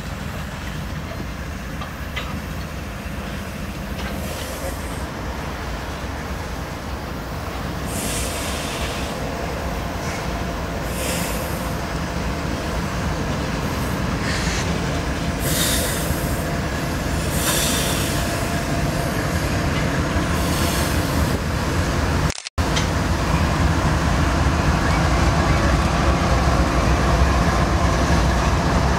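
Freight train rolling past: the cars' wheels rumble on the rails, with short high wheel squeals every few seconds. After a sudden cut about two-thirds through, a CSX diesel locomotive goes by close, its engine's low rumble louder.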